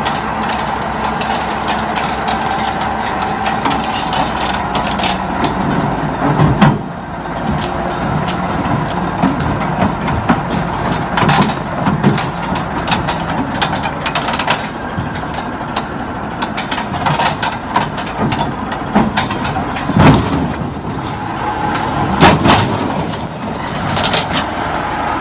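Crawler bulldozer's diesel engine running under load as the machine climbs steel ramps onto a lowboy trailer, with loud clanks and knocks from the tracks and ramps at irregular intervals.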